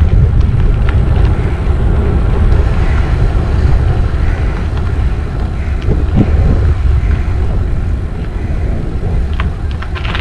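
Steady low wind rumble on the microphone, mixed with tyre noise from a mountain bike rolling along a gravel campsite lane, with faint scattered ticks of grit and rattle.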